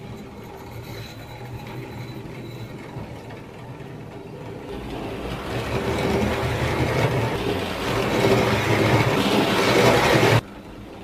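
Hornby Dublo tank engine chassis running along the track under its horseshoe-magnet motor, with neodymium magnets fitted beside the horseshoe magnet. The motor and running gear grow steadily louder from about halfway through, then stop abruptly near the end.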